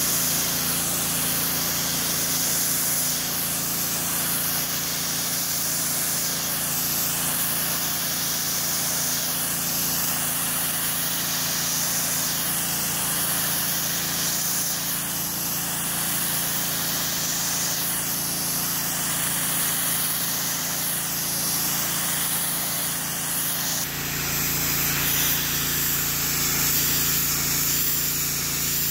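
Pressure washer wand spraying a high-pressure jet of water onto an area rug: a steady hiss of spray over the constant hum of the machine. The hum changes abruptly about 24 seconds in.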